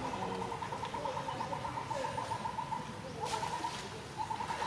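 A bird's rapid trill, one note near the same pitch repeated about eleven times a second in a long run, then broken into short bursts, with a sharp click about three seconds in.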